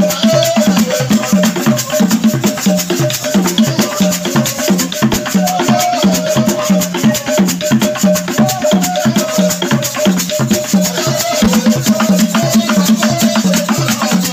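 Loud dance music played over a loudspeaker: a fast, steady rattle of percussion over a repeating bass pulse.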